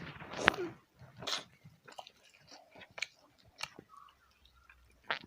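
A person chewing goli bajji, a fried fritter, close to the microphone: a bite with a louder crunch about half a second in, then a string of short chewing clicks.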